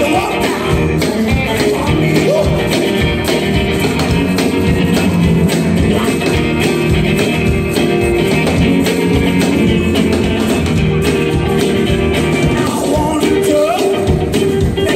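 Rockabilly band playing live: upright bass, acoustic and electric guitars and drums, with a steady, quick beat.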